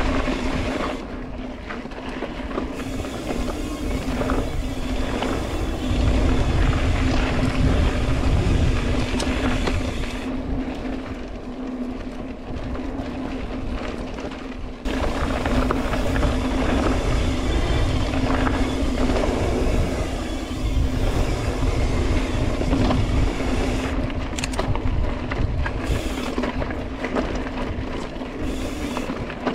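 Wind buffeting the microphone and trail noise from a mountain bike being ridden on dirt, louder in stretches, with background music over it.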